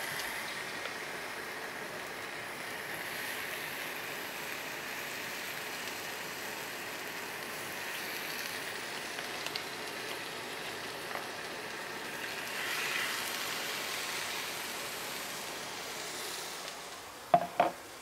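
Skin-on chicken thighs sizzling in hot oil in a cast-iron skillet as they are laid in, a steady hiss that swells for a while in the second half, over the running vent fan of an over-the-range microwave. A couple of sharp knocks near the end, from the tongs against the pan.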